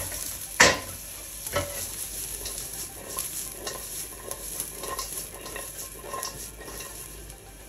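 Chopped onion, spring onion and green pepper sizzling in oil in a hot non-stick wok on high heat, stirred and tossed, with small scrapes of the stirring. A sharp knock about half a second in and a lighter one a second later.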